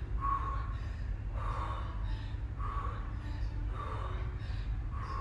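A woman's sharp, forceful exhalations through the mouth and nose, about five of them at a steady pace of roughly one every second and a bit, one with each dumbbell snatch rep.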